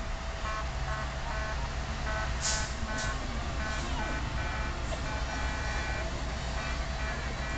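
A decorated parade vehicle passing close by, its engine running with a steady low rumble. Over it plays a string of short high electronic tones in an irregular, tune-like pattern.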